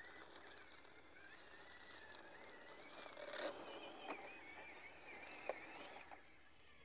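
Whine of a 1/18-scale FMS FCX18 Hummer EV RC crawler's stock brushed motor and gear drivetrain as it crawls over rock. The pitch wavers with the throttle and steps up and grows louder about halfway through, with a couple of sharp ticks.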